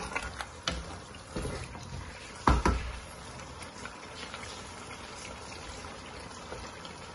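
Spatula stirring a thick tomato and meat stew in a large metal pot: wet, sloppy stirring with several knocks of the spatula against the pot in the first three seconds, the loudest about two and a half seconds in.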